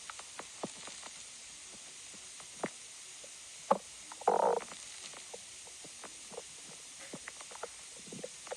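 Stomach growling: scattered short gurgles and pops over a faint steady hiss, the loudest a half-second gurgle about four seconds in.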